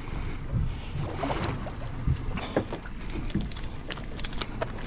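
Wind buffeting the microphone and water sloshing against the side of a fishing boat, with scattered short clicks and knocks.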